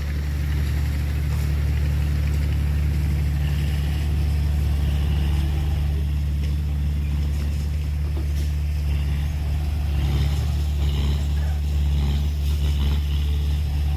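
Heavy diesel engine running steadily, a deep even hum, with a few faint clanks over it.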